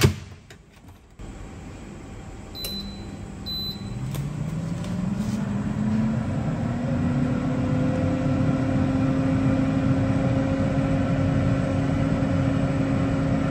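Kangaroo air fryer oven: the door shuts with a sharp click, two short button beeps follow, then the fan motor starts up. Its hum rises in pitch over about two seconds and then runs steadily.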